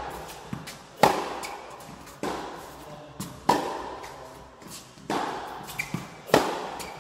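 Tennis ball struck back and forth with rackets in a rally. Each sharp hit comes about every second and a quarter, with fainter knocks between, probably the ball bouncing on the court. The hits echo around a large indoor tennis hall.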